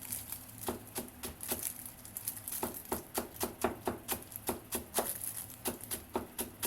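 Knife chopping spring onion finely on a cutting board: a quick, slightly uneven series of knocks, about three or four a second.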